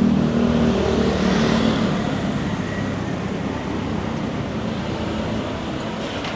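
A small box truck's engine passes close by. It is loudest at the start and fades after about two seconds, leaving steady street traffic.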